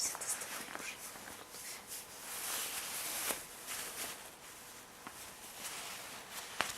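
Rustling and scuffling with many light clicks and scrapes, louder for a moment in the middle.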